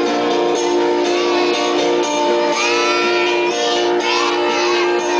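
Music with plucked and strummed guitar strings playing steadily, with gliding higher notes over it near the middle.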